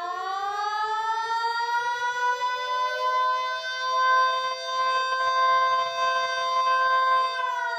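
Outdoor civil-defense warning siren sounding an attack signal: a chord of several tones sweeps up in pitch, holds steady for about four seconds, then starts to fall near the end.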